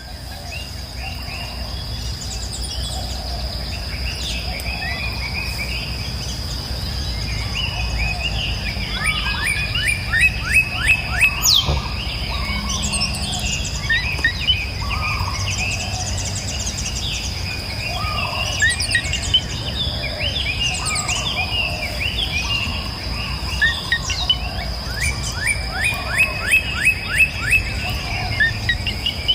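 Several birds chirping and singing, with quick runs of rapidly repeated notes, over a steady high-pitched insect drone.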